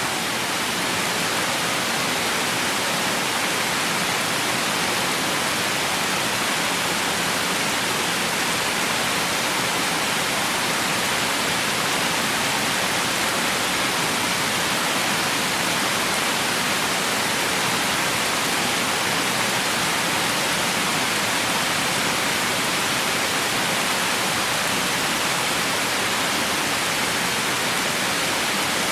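Heavy rain falling as a steady, even hiss, with no single drops or thunder standing out.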